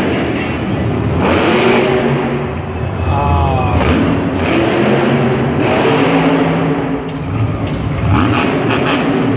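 Megalodon monster truck's supercharged V8 engine running loud and revving up and down as the truck drives across the dirt arena floor.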